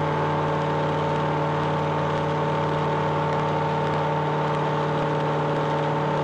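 Flight Design CTSW's Rotax 912 four-cylinder engine and propeller droning steadily under power in the climb, heard in the cockpit.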